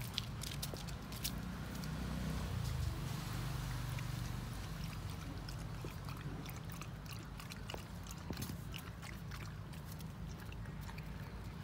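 Puppies shifting about on concrete: scattered small clicks and scrapes from claws and paws, over a steady low rumble.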